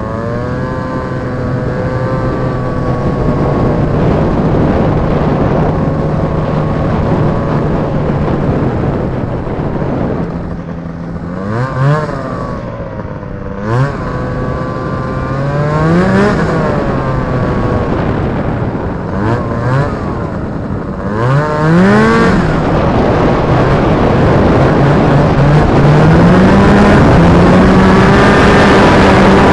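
Snowmobile with a 503 Rotax two-stroke engine riding along. It runs steadily at first, then eases off and is given several short bursts of throttle with the pitch rising each time, then is held at a higher, louder speed near the end.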